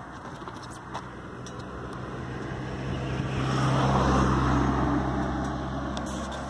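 A car driving past: its engine hum and tyre noise grow louder to a peak about four seconds in, then fade as it moves away.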